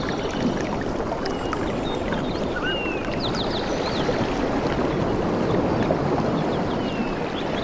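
Steady rushing water, with scattered short, high bird chirps and whistles over it.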